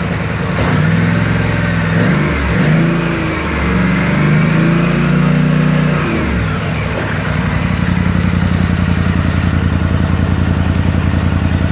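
2016 Polaris Scrambler XP 1000's 952 cc parallel-twin engine revved up and down a few times, the last rev held for a couple of seconds. It drops back to a steady idle about seven seconds in.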